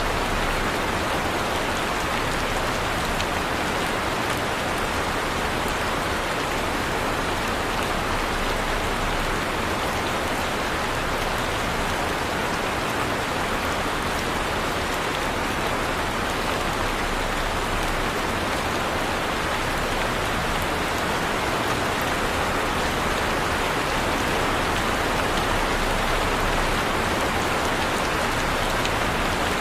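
Heavy rain falling steadily on a surface, an even dense patter with no thunder or breaks.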